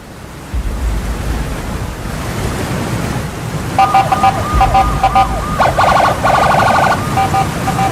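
A steady low rushing noise, with an emergency siren coming in about halfway through, cycling rapidly between two high tones.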